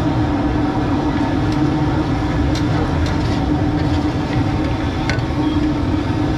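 A steady mechanical hum over a low rumble, with a few light clicks.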